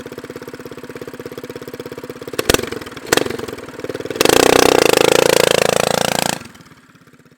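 A motor running with a rapid, even pulse, then two sharp knocks about half a second apart, then a loud rushing whir about two seconds long, rising slightly in pitch, that cuts off suddenly.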